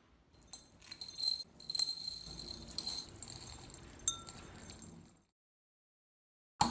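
Coarse crystals poured into an empty glass beaker, a dense clinking patter against the glass with a high ringing, for about four and a half seconds before it stops. A single sharp click near the end.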